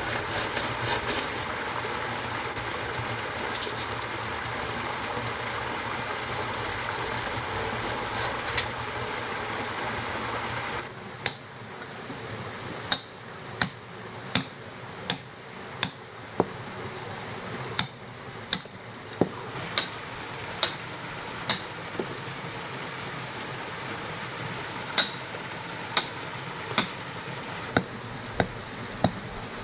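A steady rushing noise for about the first eleven seconds. It then gives way to a metal bar repeatedly striking and chipping soft grey rock: sharp, ringing blows, about one a second.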